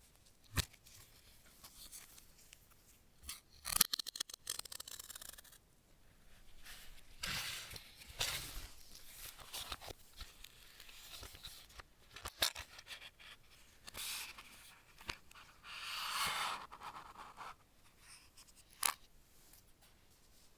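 Hands handling packaging: rustling and scraping stretches a second or so long, with scattered sharp clicks and taps in between.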